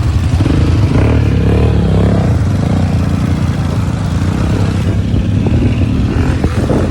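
Automatic ATV engine running loudly and steadily, with a few short clicks near the end.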